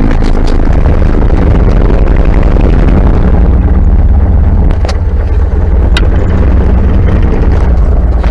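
1930 Ford Model A's four-cylinder flathead engine running steadily, heard from inside the cab, on its newly fitted FSI distributor. Two short sharp clicks come about five and six seconds in.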